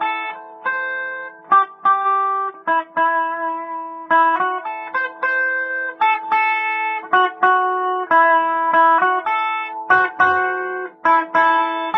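Electric guitar played clean through a 1970s Fender Bassman tube amplifier: a melody of picked single notes over a lower note that keeps ringing.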